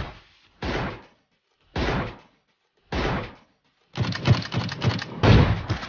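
Gunfire on an edited soundtrack: three heavy single shots about a second apart, each dying away, then from about two-thirds of the way in a rapid run of shots like automatic rifle fire.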